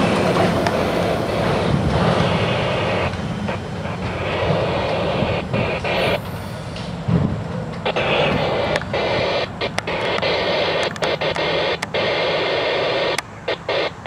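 Freight train's autorack cars rolling past and away, their wheel and rail noise easing over the first few seconds. A steady static-like hiss follows and cuts out abruptly several times near the end.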